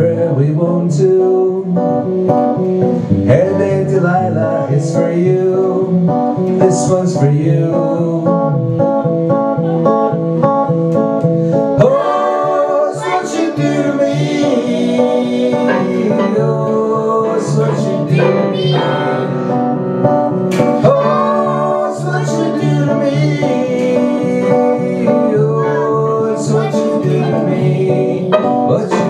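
Electronic keyboard and acoustic guitar playing together, with steady held chords and plucked notes in a continuous instrumental passage.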